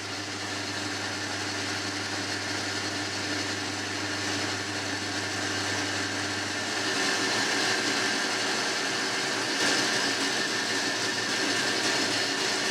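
Boxford lathe running, turning a mild steel bar down to just under 12 mm: a steady motor-and-drive hum with cutting hiss. About seven seconds in the low hum drops away and the higher hiss gets a little louder.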